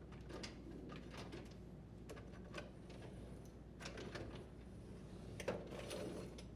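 Faint, scattered plastic clicks and light rattles of a dishwasher's upper rack being slid onto its rails, its sliders seating between the rollers; the firmest knocks come about five and a half seconds in.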